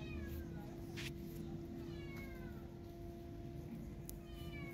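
Cat meowing: three short meows, each falling in pitch, about two seconds apart, over a steady low hum.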